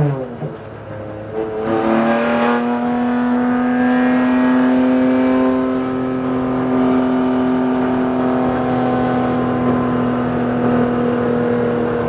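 BMW M4 GT4 race car's twin-turbo inline-six heard from inside the cockpit. Right at the start an upshift into third drops the engine note, and for about two seconds the engine is quieter. Then it pulls again at steady, slowly rising revs.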